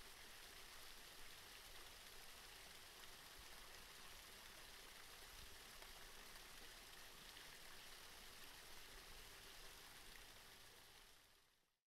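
Near silence: a faint, even hiss of room tone, fading out near the end.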